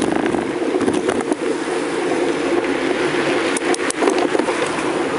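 Wind and road noise from a bicycle ride, a loud steady rush with a few sharp rattles about one second in and again near four seconds.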